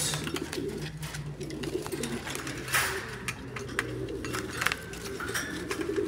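Domestic pigeons cooing in a wire cage, a low warbling coo going on throughout, with scattered sharp clicks.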